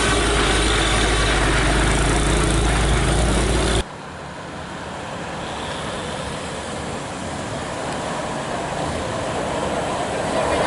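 A heavy vehicle's engine running loud and close with a deep steady rumble. About four seconds in it cuts off abruptly to much quieter traffic noise, which slowly grows louder as another vehicle approaches.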